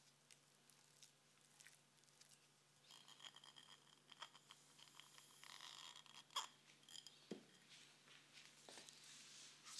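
Faint, soft kitchen sounds: a silicone spatula working cream cheese in a glass bowl, then granulated sugar poured into the bowl with a light hiss. One sharp tap about six seconds in, and a dull knock just after.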